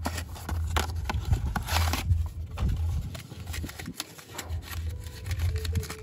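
Hands opening a small cardboard toy box and pulling a diecast metal toy tanker truck out of its plastic tray: irregular rustling and clicking of cardboard and plastic packaging.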